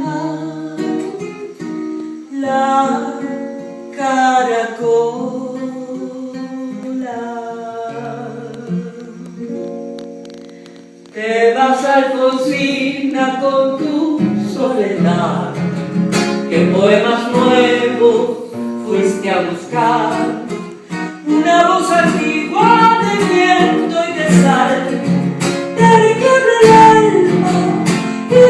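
A woman singing a Spanish-language song over a plucked acoustic guitar accompaniment. The singing is softer at first and grows distinctly louder and fuller about eleven seconds in.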